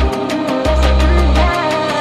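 Instrumental background music with a beat, a melody line and long held deep bass notes.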